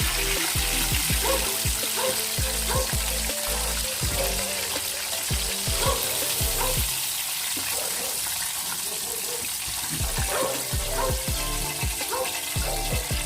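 Background music over a steady sizzling hiss, likely chicken frying in hot oil.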